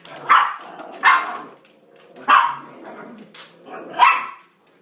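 A small dog barking four times, loud and short, at a cat perched above it on a cat tree.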